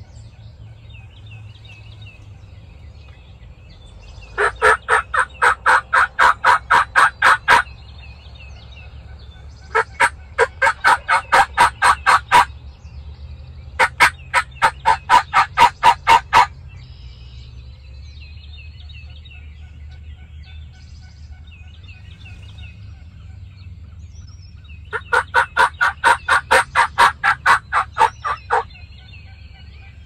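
Turkey call worked close by, sounding hen yelps in four runs of about ten yelps each, about four a second, every run lasting some three seconds. Songbirds chirp faintly behind.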